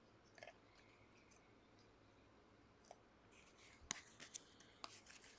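Near silence with a few faint clicks and rustles of trading cards and packs being handled, the sharpest click about four seconds in.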